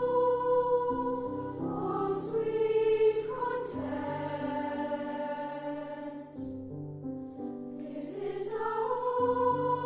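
A choir singing long held high notes over a lower accompaniment, with a few sung consonants cutting in.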